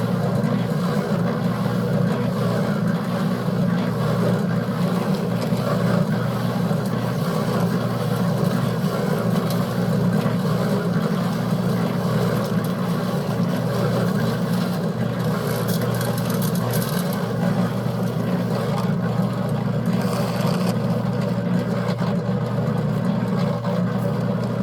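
Concrete mixer running steadily, its drum turning a batch of concrete, with a constant low motor hum. Two brief hissy noises come in past the middle.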